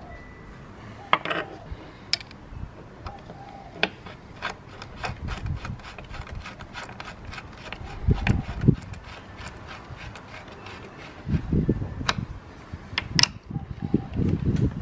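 Rapid light mechanical clicking as a Shimano Dura-Ace road pedal is spun by hand onto the crank arm with an 8 mm hex key in its axle, with a few dull bumps around the middle and near the end.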